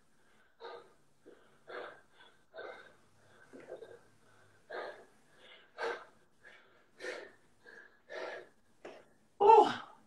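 A man breathing hard from exertion during a squat-based conditioning workout: short heavy breaths about once a second, with one much louder breath near the end.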